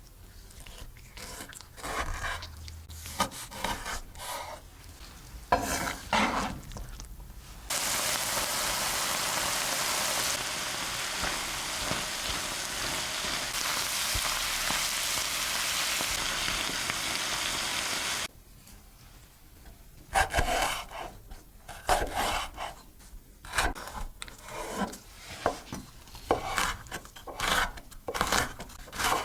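A spatula stirring and scraping food in a pan, in separate strokes. About eight seconds in, a steady loud sizzle of food frying in hot oil starts suddenly and runs for about ten seconds. It cuts off, and the stirring strokes return.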